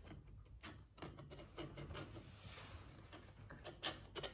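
Pet rat licking out a plastic yogurt cup with its head inside it: faint, irregular quick clicks and scrapes of tongue and teeth on the plastic, a little busier near the end.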